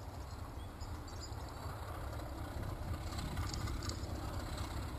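Class 33 diesel-electric locomotive with its Sulzer eight-cylinder engine, heard as a low, distant rumble that slowly grows louder as the train approaches.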